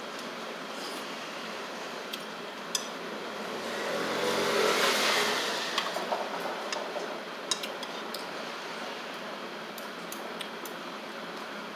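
Steady room noise with scattered sharp clicks of utensils against dishes. A louder swell of noise rises and fades about four to six seconds in.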